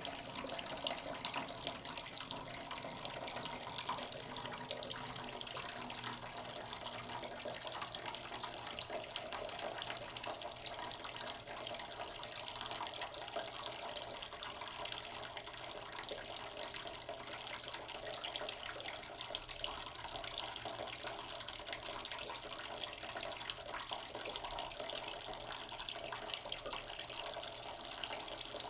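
Water from a tap running in a slow stream into a cooking pot in a sink, a steady splashing as the pot fills.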